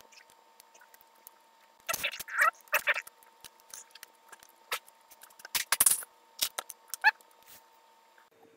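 Plastic pieces of a Ghost Hand 4x4x4 puzzle cube clicking and clacking as they are handled and fitted onto the core. The taps come irregularly in small clusters, the loudest about six seconds in.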